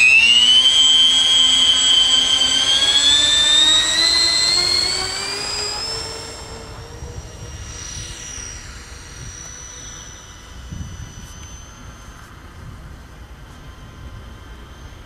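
Radio-controlled model B-17 Flying Fortress's four propeller motors at takeoff power, a high whine that climbs steadily in pitch. It is loud for the first five seconds, then fades as the model climbs away.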